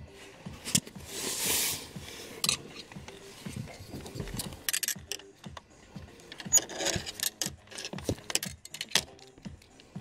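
Plastic and metal clicks and rustling as a VW Golf 5 ignition lock cylinder, with its immobiliser antenna ring and connector, is handled in the fingers. A longer scraping rush comes about a second in, and sharp clicks are scattered throughout.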